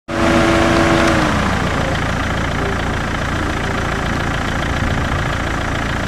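An engine running steadily at idle, a low even hum, with a short pitched tone over it for about the first second.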